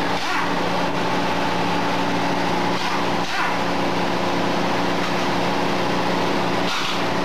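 An engine running steadily, a constant drone with a fixed hum, with a couple of brief knocks about three and seven seconds in.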